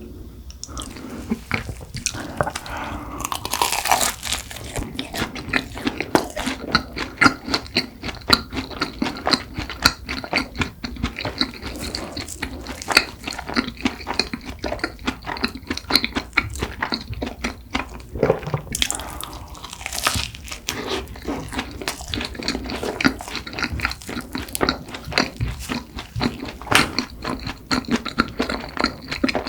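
Close-up chewing of cronuts, croissant-doughnut pastry: flaky layers crunching and being chewed with wet mouth sounds, in a quick, irregular run of small clicks.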